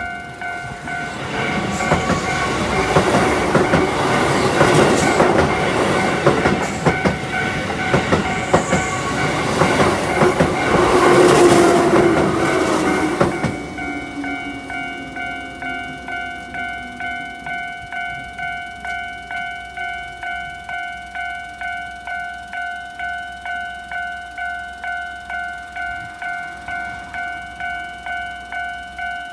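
Japanese level-crossing alarm ringing, a repeated electronic ding about three times every two seconds. A Keihan Electric Railway train passes over the crossing from about a second in, its wheels clattering over the rail joints, and is gone by about 13 seconds. Its motor hum falls away as it leaves while the alarm keeps ringing.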